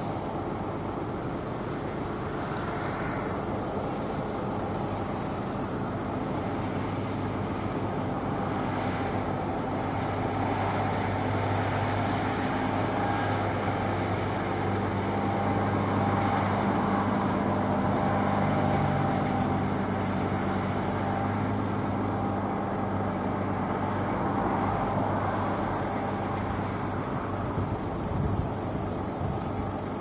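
John Deere S680i combine harvester running steadily while cutting barley: a constant machine drone with several steady hum tones. It grows a little louder about halfway through and then eases off slightly as the combine moves away.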